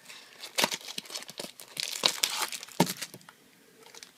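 A small cardboard box being opened and a carrying case in clear plastic wrap slid out and handled: irregular crinkling and rustling with sharp clicks, loudest around two seconds in.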